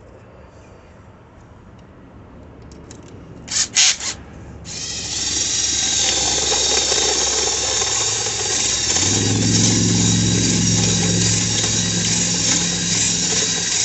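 A few short, loud, high squeals, then a small electric power tool's motor starts up and runs with a steady high whine. A steady low hum joins it about halfway through.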